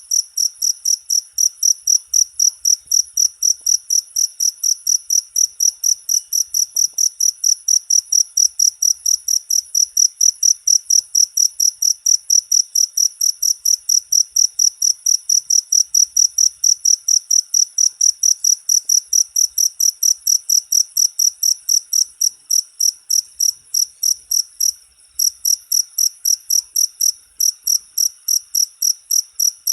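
A cricket chirping in a fast, even, high-pitched pulse train, several chirps a second, with one brief break about three-quarters of the way through.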